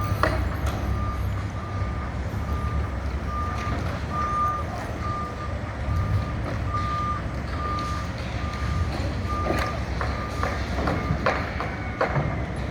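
Backup alarm of a construction vehicle beeping in a steady single tone, about two beeps a second, stopping about nine seconds in, over the low rumble of a diesel engine.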